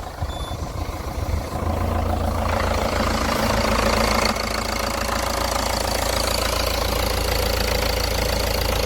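Van engine idling steadily just after starting on a newly fitted replacement battery, the running level picking up about two seconds in and then holding even.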